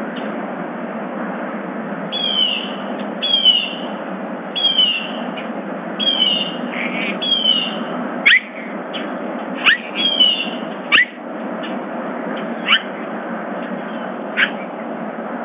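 Bird calls: a run of short descending chirps about once a second, then a few sharp upward-sweeping calls spaced a second or two apart, over a steady hiss.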